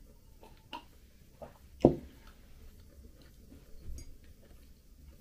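Quiet eating sounds of sipping tea and chewing a muffin, with a few soft clicks. A ceramic mug knocks once on the table about two seconds in.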